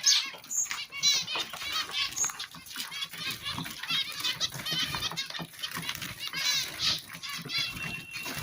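Many caged pet birds chirping and squawking at once, a dense overlapping chatter of short high calls, with a brief thin whistle-like tone near the end.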